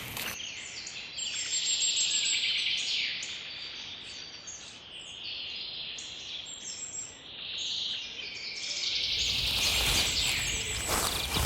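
Wild birds chirping and singing, many short overlapping calls and trills. About nine seconds in, footsteps start.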